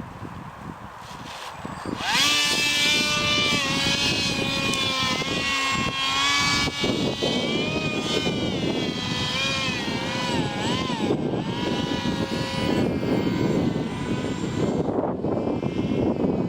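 Model paraglider's motor and propeller whining, starting suddenly about two seconds in, its pitch rising and falling as the throttle changes.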